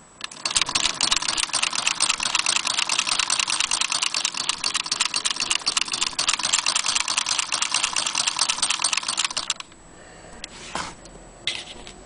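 1890s Victorian sewing machine running at speed, its mechanism making a fast, even clatter that stops suddenly about nine and a half seconds in. A couple of single clicks follow near the end.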